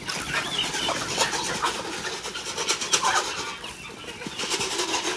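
A flock of chickens clucking as they feed on scattered grain, over a dense patter of small clicks.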